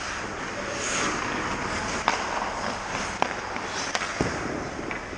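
Hockey skates scraping across the ice, with three sharp cracks of stick and puck about a second apart.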